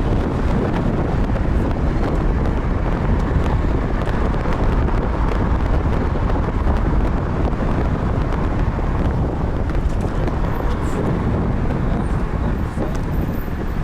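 Car on the move: a steady rumble of road and engine noise heard inside the cabin, mixed with some wind.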